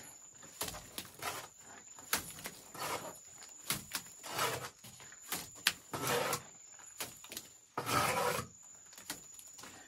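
Steel trowel scraping wet cement mortar across a hand-held mortar board, in irregular short scrapes with a few sharp clicks of metal on the board.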